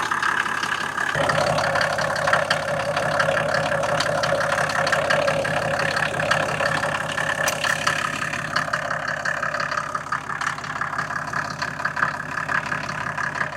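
Mercedes-Benz 350 SDL's 3.5-litre straight-six turbo diesel idling steadily with an even diesel clatter, shortly after starting from sitting unused for a while. The injectors sound healthy to the owner, with no issues felt.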